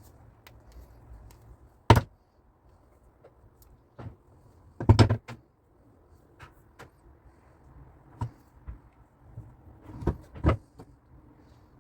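Scattered sharp knocks and clicks from handling stainless steel whisk and strainer-handle parts during repair. There is a loud one about two seconds in, a quick cluster about five seconds in, and two more near the end.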